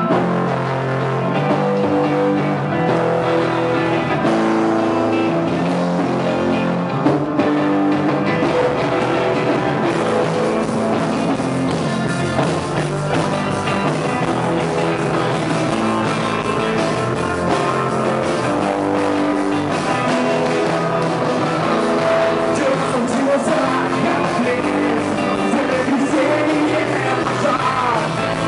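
Rock band playing live: electric guitar, bass guitar and drums, with a male lead singer singing into a microphone.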